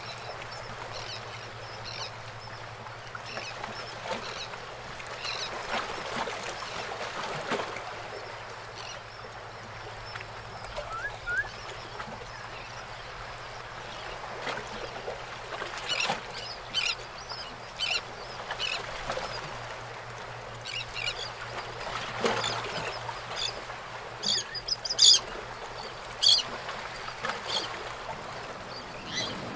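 Water lapping and kayak paddle strokes splashing among concrete pier pilings, with seabird calls from birds perched on the beams, the calls coming thicker and louder in the second half.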